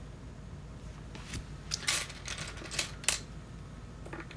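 Loose plastic LEGO pieces clicking and clattering against each other as hands rummage through a pile of bricks, a string of sharp, separate clicks starting about a second and a half in.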